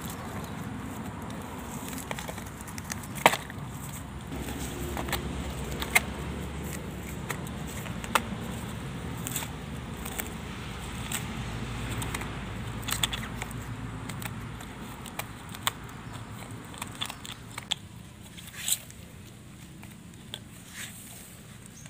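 Tangled grass being pulled and torn by hand off a brush cutter's trimmer head: rustling and crackling with many sharp snaps, over a low rumble that fades after about 17 seconds.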